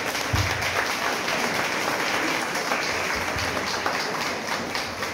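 Audience applauding, many hands clapping together in a dense steady patter that eases off slightly near the end.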